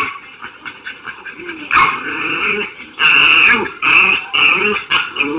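A dog making a series of short, pitched vocal sounds that bend up and down, with several loud ones in quick succession about three seconds in.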